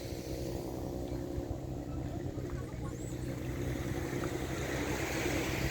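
Tour boat's engine running steadily while underway, a low even hum.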